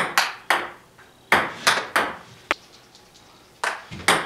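Table tennis ball knocking on paddle and table in a rally: about nine sharp, short clicks at an uneven pace, with a pause of about a second partway through, in a small room that gives each a brief ring.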